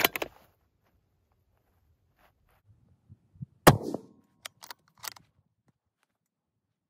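A single shot from a Barrett MRAD bolt-action rifle in 300 PRC, sharp and loud with a short low rumble after it, about three and a half seconds in. A cluster of sharp metallic clicks comes at the start, and a few more follow the shot within about a second and a half.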